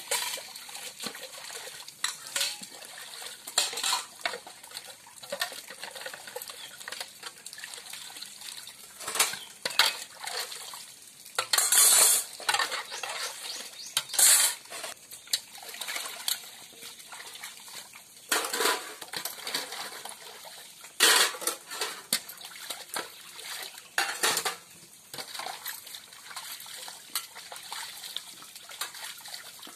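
Stainless steel dishes and pots clinking and clattering as they are scrubbed and rinsed by hand in a basin of water, with several louder bursts of splashing water through the middle.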